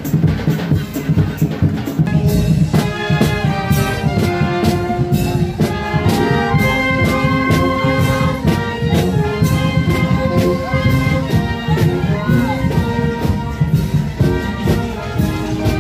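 Marching brass band playing in the street: drums alone at first, then the brass, sousaphone included, comes in with a melody about two and a half seconds in over a steady drumbeat.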